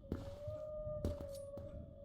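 A drawn-out, slightly wavering moaning tone that sounds like a whale call, with a few sharp knocks over it and a low rumble underneath.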